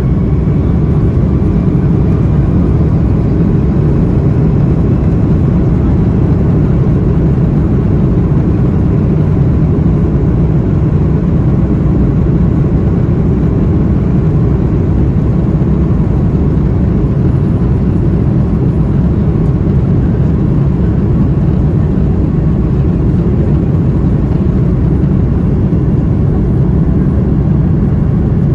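Inside the cabin of a taxiing Airbus A330-300: a loud, steady low rumble from its Rolls-Royce Trent 700 engines at taxi power and the airliner rolling along the taxiway. A faint steady whine sits on top for the first several seconds.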